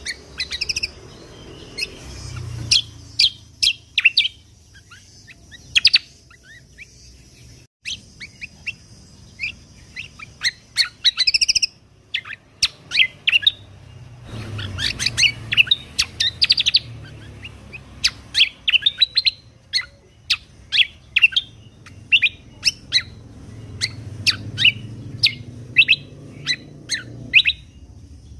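Kecial kombok (cucak kombo) songbird singing in quick runs of short, sharp high chirps and trills with brief pauses between runs, over a faint low hum.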